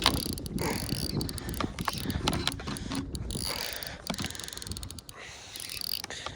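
Bait-finesse baitcasting reel clicking and ratcheting irregularly while a hooked fish, snagged under a tree, is fought on the line.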